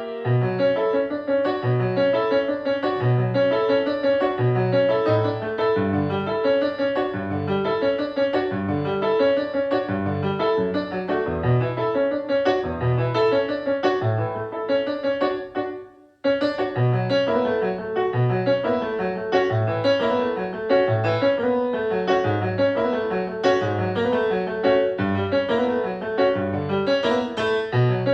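A band playing a song led by keyboard, with a steady rhythmic bass line under many quick pitched notes. The music cuts out for a split second about halfway through, then picks straight back up.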